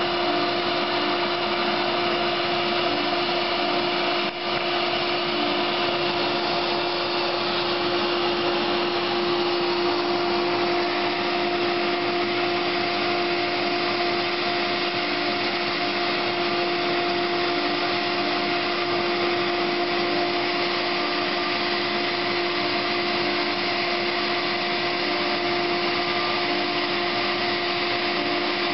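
CNC router spindle running steadily with a constant whine while V-carving a wooden board, over the even rush of the dust extraction pulling through the dust shoe. The level dips briefly about four seconds in.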